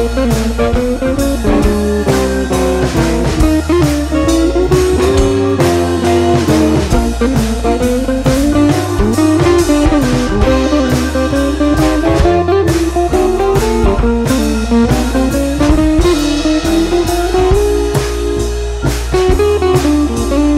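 Background music: a blues-style guitar instrumental over bass and a steady drum beat.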